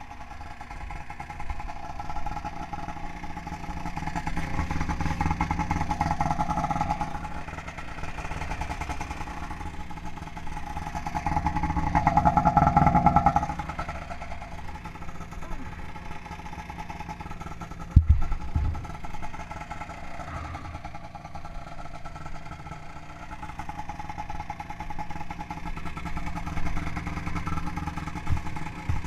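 Snowmobile's Rotax 583 two-stroke twin engine running steadily while the sled is stuck in deep snow. It swells louder twice, a few seconds in and again around twelve seconds. A single sharp knock comes about eighteen seconds in.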